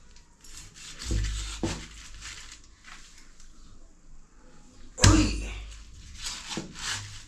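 Objects being handled and set down on a hard surface: two knocks about a second in, then one loud thump about five seconds in.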